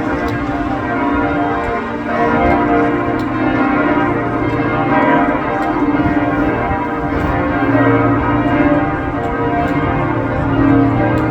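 Cathedral bells ringing a full peal: several large bells struck in quick, irregular, overlapping succession over a continuous hum of their long-ringing tones.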